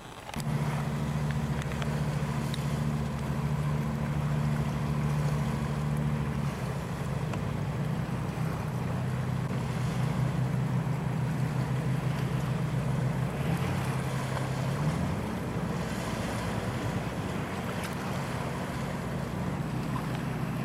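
An engine running steadily, cutting in abruptly at the start. Its pitch drops about six seconds in and climbs again around fifteen seconds, under a hiss of wind or water.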